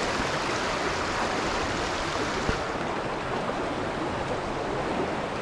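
Fast, swollen river riffle rushing steadily, its flow running high with snowmelt.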